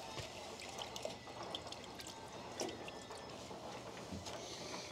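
Water dripping and trickling from a hand into a plastic basin of water, with small splashes as a hand moves in the water.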